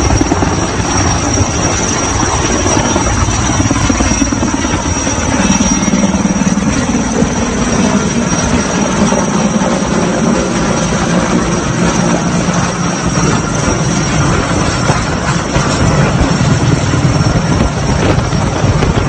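Sikorsky S-64 Skycrane heavy-lift helicopter hovering with a load: steady, loud rotor and turbine noise, its low drone growing stronger about five seconds in.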